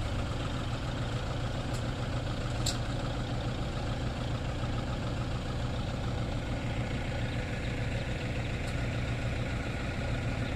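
A vehicle engine idling steadily with an even low hum.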